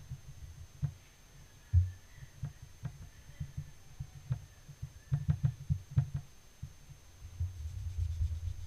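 Soft taps and low thumps of a dye brush dabbing, first at irregular intervals as it is worked in the paint tray, then a quicker, steadier run of thumps near the end as dye is dabbed onto cloth pressed over the stamp.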